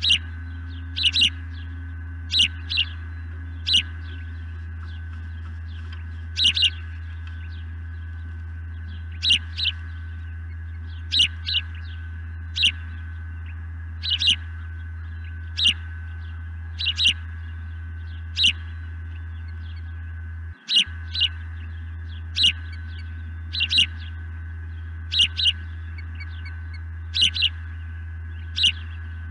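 Osprey calling overhead: short, high, sharp whistled chirps, single or in quick pairs, repeated every second or two. These are calls that sound like a male osprey's sky-dance display. A steady low hum runs underneath, with a brief dropout about two-thirds of the way through.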